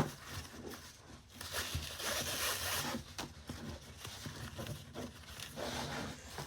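A belt being fed through a fabric holster pouch: a sharp click at the start, then a rasping rub of webbing sliding against fabric for about a second and a half, followed by lighter rustling as the pieces are handled.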